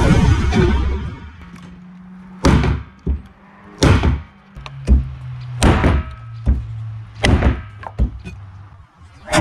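Condor Viking machete chopping into a dry branch laid across plastic drums: a run of sharp chopping thunks, about six blows a second or two apart. Background music with a low held bass note plays under them.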